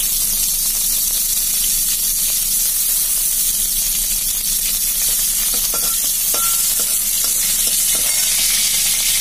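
Green chillies and nigella seeds sizzling in hot oil in a wok: a steady hissing fry, the tempering stage of the dish. A metal spatula stirs and lightly scrapes the pan a few times in the second half.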